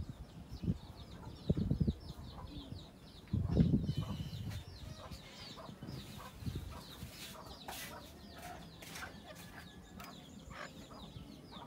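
Background bird calls: rows of short, quick chirps. Two loud low thumps come in the first four seconds, and scattered clicks follow later.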